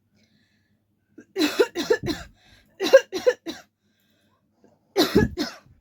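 A woman coughing on purpose for a coughing challenge: three short fits, each of two or three quick coughs, with pauses between them.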